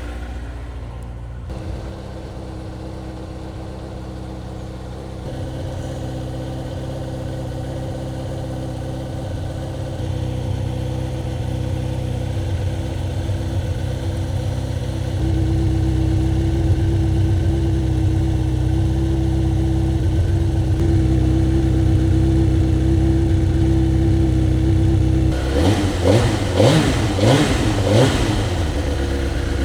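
Suzuki GSX-R1000 K1's inline-four running warm through its stock exhaust can, idling steadily and getting louder in two steps, about five and fifteen seconds in. Near the end it is blipped up and down several times.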